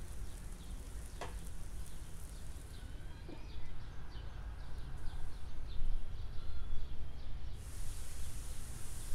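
Broccoli and green beans sizzling in a frying pan, with scattered crackling pops. A glass lid over the pan dulls the sizzle for a few seconds, and it comes back brighter near the end when the lid is lifted.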